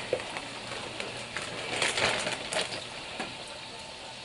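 Battered trout frying in hot oil in a pan, a steady sizzle that flares up briefly about two seconds in, with a few light clicks.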